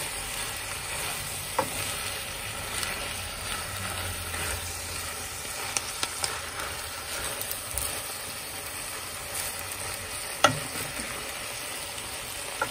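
Bamboo shoot, chicken and saluyot leaves sizzling in a wok while a wooden spatula stirs them. A few sharp knocks of the spatula against the pan come through, the loudest about ten seconds in.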